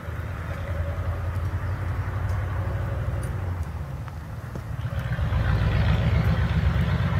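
Bacon frying in a camp pan, a steady sizzle with a few small pops, under a gusty low rumble of wind on the microphone that grows louder about five seconds in.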